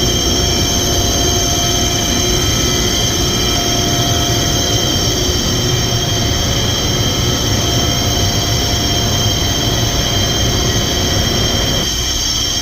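Steady boiler-room machinery noise: a loud, even rumble with several constant high whines over it, from equipment running in the plant's boiler room.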